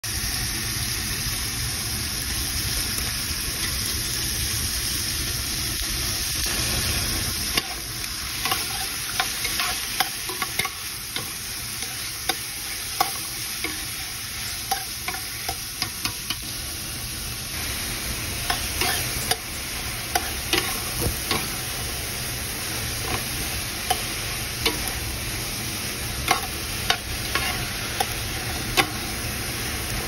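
Artichokes, onion and herbs sizzling steadily in a metal pan. After a few seconds of plain sizzling, a spoon starts stirring, knocking and scraping against the pan in quick irregular clicks.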